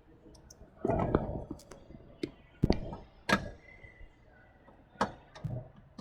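Scattered sharp clicks and knocks of a refrigerant hose coupler being handled and fitted onto the low-side service valve of an AC system.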